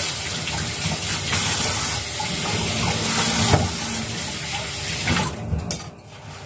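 Kitchen faucet running full into the sink while hands rub and rinse something under the stream. It is shut off about five seconds in.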